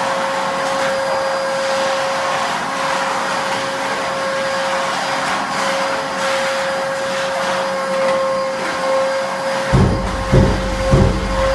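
Hilti VC 20-U construction vacuum cleaner running steadily: a constant whine over the rush of air. Near the end, three low thumps.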